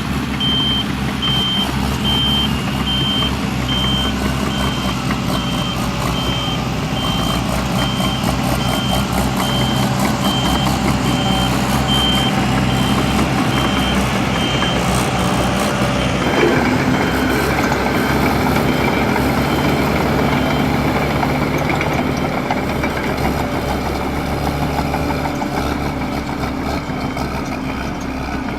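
Heavy vehicle's diesel engine running steadily with its reversing alarm beeping at a steady high pitch; the beeping stops about halfway through, followed shortly by a single knock while the engine keeps running.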